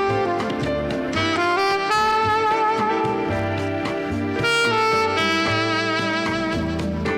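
Alto saxophone playing a slow melody, with a wavering vibrato on the longer held notes, over an accompaniment with a bass line.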